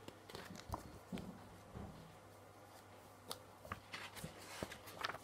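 Faint rustles and soft clicks of a hardback picture book being handled and its pages turned, over a low steady hum.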